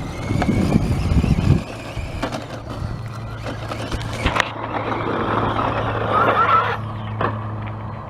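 Radio-controlled car driving and jumping, its motor whirring louder in the middle, with a couple of short knocks. Irregular low rumbling comes first, then a steady low hum from about a second and a half in.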